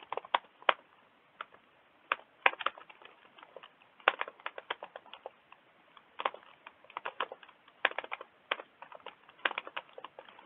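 Computer keyboard being typed on: irregular keystroke clicks in short bursts separated by brief pauses.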